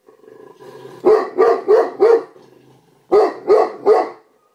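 A dog barking in two runs: four barks in quick succession, then three more about a second later.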